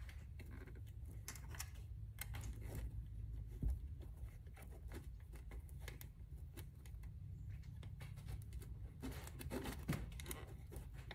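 Scattered light clicks and scratches of a small Allen key and bolt being turned by hand against acrylic panels, busier about nine seconds in, over a low steady hum.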